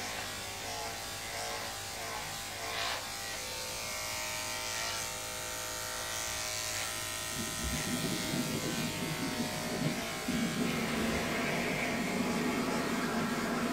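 Electric dog-grooming clippers running with a steady buzz, getting louder and rougher from about halfway through.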